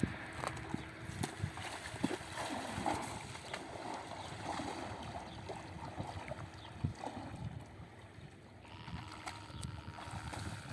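Water splashing and sloshing irregularly, many small splashes without any steady rhythm.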